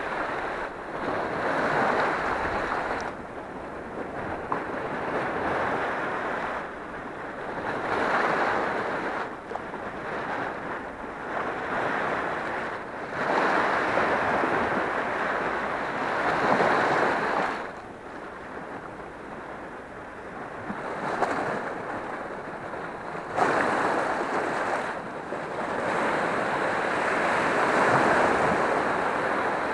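Sea waves breaking and washing over a flat rock shoreline, the surf swelling and fading in surges every few seconds.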